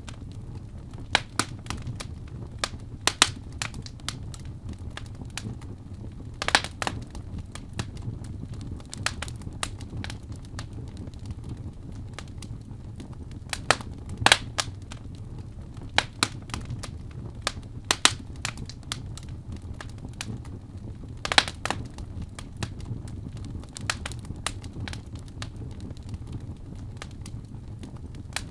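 Fire in a fireplace crackling, with irregular sharp pops over a low, steady rumble.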